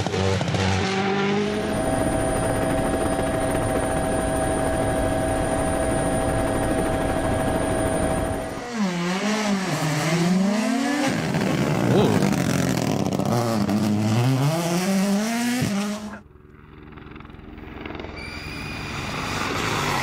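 Rally1 rally cars' turbocharged four-cylinder engines at stage speed. First comes a steady high engine note for several seconds, then the revs rise and fall several times. About four seconds before the end the sound cuts away and another car's engine grows louder as it approaches.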